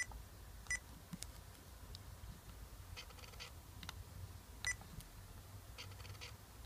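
SANYO S870 compact digital camera's button beeps: three short electronic beeps as its menu buttons are pressed, one at the start, one under a second in and one near five seconds in. Faint clicks come between them.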